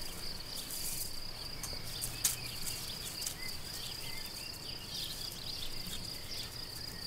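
Outdoor field ambience dominated by a steady, high-pitched insect trill, with a few faint short chirps and one sharp click a little over two seconds in.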